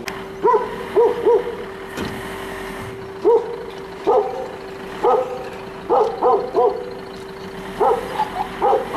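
A dog barking repeatedly in short groups of one to three barks, over a steady hum.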